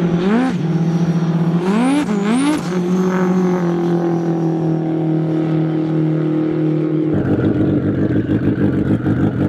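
Turbocharged racing jet ski engine revving: its pitch sweeps up twice in the first few seconds, then holds a steady high pitch at full throttle. About seven seconds in it gives way to a rougher, lower, throbbing engine note of a ski running slowly.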